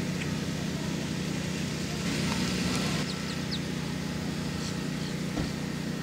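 Steady low mechanical hum, like a running engine or traffic, with a few faint, short, high bird chirps in the middle and one dull knock near the end.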